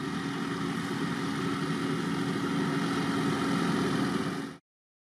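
Fendt 312 Vario tractor's engine running steadily at working revs while pulling a field sprayer, with a steady hum. It cuts off suddenly near the end.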